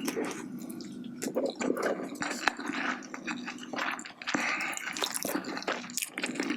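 Close-miked wet eating sounds: squishy chewing of a mouthful of rice soaked in jjimdak sauce, with many small wet clicks.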